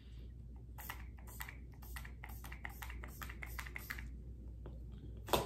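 Makeup setting spray pumped from a small spray bottle onto the face: a rapid run of short hissing sprays, several a second, stopping after about four seconds. A single sharper click near the end.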